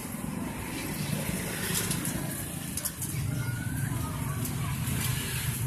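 Street traffic rumbling steadily, growing stronger about three seconds in.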